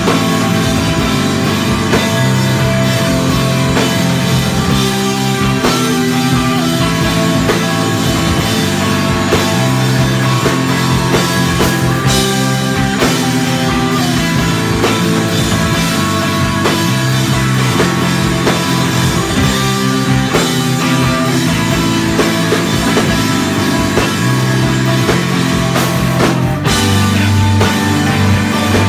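Live rock band playing loud and close, electric guitar over a drum kit, with sharp crashing accents about twelve seconds in and again near the end.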